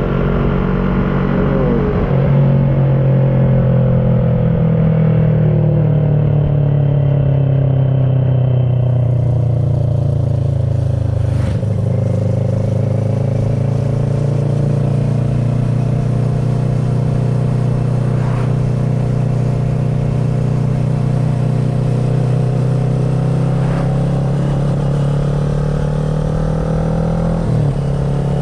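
2010 Kawasaki ER-6n's parallel-twin engine running through an SC Project carbon slip-on exhaust with the dB killer fitted, ridden at steady throttle. The engine note drifts slowly lower and then rises again, with brief dips about two seconds in, near the middle and near the end.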